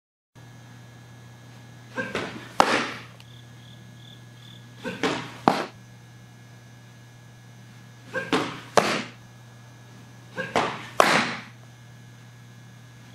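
Four fastpitch softball pitches caught in a leather catcher's mitt: each a softer sound at the pitcher's release, then about half a second later a sharp pop as the ball hits the mitt. A steady low hum runs underneath.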